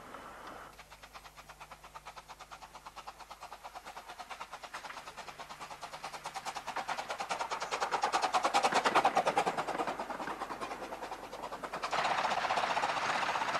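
15-inch-gauge steam locomotive working past with a fast, even beat of exhaust chuffs that grows louder as it comes close and then eases away. At about 12 s this gives way abruptly to a steady rushing noise.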